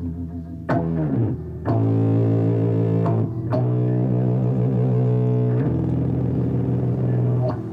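Live music on a low string instrument: long held low notes, each changing to the next with a sharp attack every second or two.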